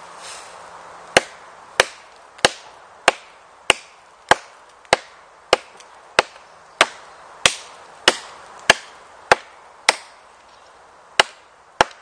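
Heavy survival knife chopping into a notch in a dry, 10 cm thick log: a steady run of sharp wooden knocks about every 0.6 s, seventeen strikes in all, with a brief pause about ten seconds in.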